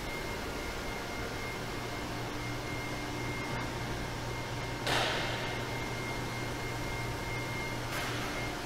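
Steady electric hum of chocolate process-line machinery, the motors driving the stainless-steel tanks, with a few faint steady whines over it. About five seconds in comes a short, sharp hiss that fades within half a second, and a fainter one comes near the end.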